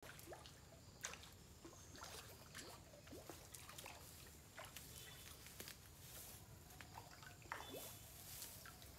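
Faint water dripping and trickling, with scattered small plinks and clicks.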